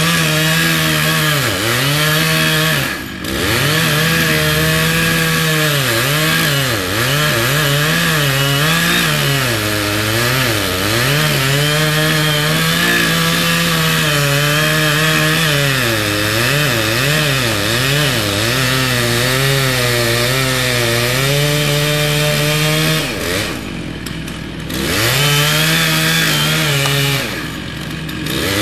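Chainsaw at high revs cutting into an oak trunk, its pitch sagging and recovering again and again as the bar loads in the wood. It eases off briefly about three seconds in and twice near the end.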